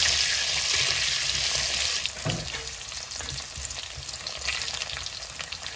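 Potato chunks sizzling as they fry in hot oil in an aluminium kadai, with a steel spoon scraping and clicking against the pan as they are stirred. The sizzle drops noticeably about two seconds in.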